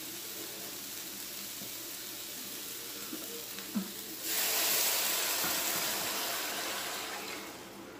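Ground beef sizzling in a hot frying pan; about four seconds in, broth is poured into the pan with a louder rushing, splashing hiss that fades near the end.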